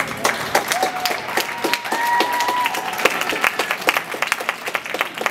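Arena audience applauding, with dense clapping and a few cheers over it.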